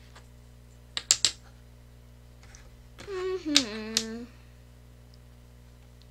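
Tangram pieces being set down and clicking against the board, a quick cluster of about three sharp clicks about a second in. Around three to four seconds in, a short hummed vocal sound from the child that drops in pitch.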